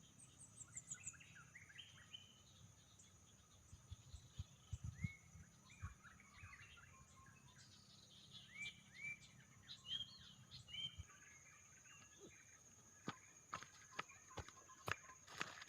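Faint birdsong: repeated short chirping notes from small birds, over a steady high-pitched insect drone. A few sharp clicks come near the end.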